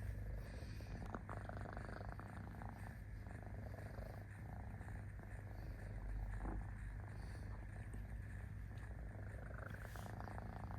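Domestic cat purring steadily, a low continuous rumble.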